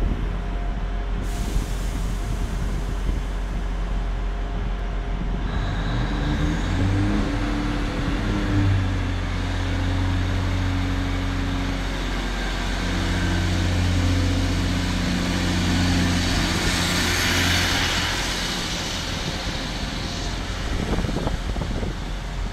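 Class 153 single-car diesel multiple unit pulling away, its Cummins six-cylinder diesel engine ticking over, then climbing in pitch about six seconds in and holding a steady note under power. The engine note falls away as the train runs past, with a rushing hiss at its loudest point near the close pass.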